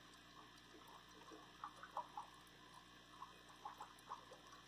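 Faint bubbling and trickling from an aquarium sponge filter, with scattered small pops of water.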